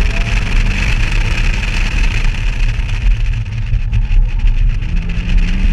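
A BMW car driving at speed, with its engine running under wind rumble on an outside-mounted camera; the engine note rises briefly about five seconds in.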